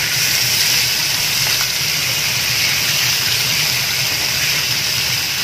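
Chopped marinated pork cheeks sizzling steadily in a hot frying pan as they are stir-fried.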